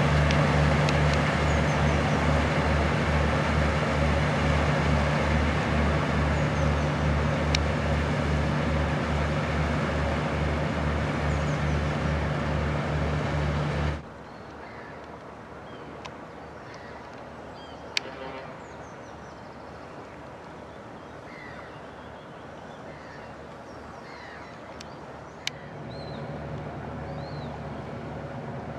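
Harbour tug's diesel engine running close by, a steady drone with an even pulse of about three beats a second. About halfway it cuts off suddenly to a much quieter stretch with scattered bird calls and two sharp clicks, and near the end the engine drone returns, fainter.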